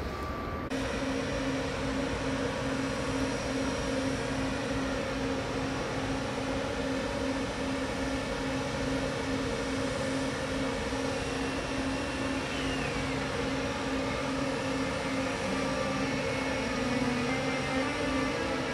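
A train running, a steady rumble with a few held humming tones over it.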